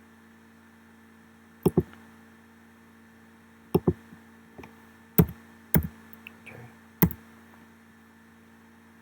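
Scattered sharp clicks and taps of hands working a computer, some in quick pairs, over a faint steady electrical hum.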